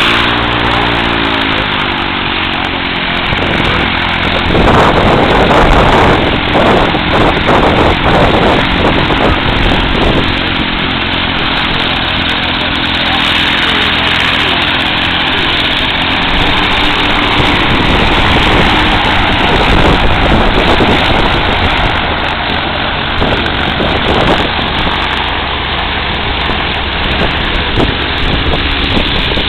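Engines and propellers of small pusher-prop seaplanes running at taxi power: first the twin-engine Lockwood AirCam on the water, its engine note bending up and down, then amphibians rolling past on their wheels. The sound gets louder and rougher for a few seconds about five seconds in.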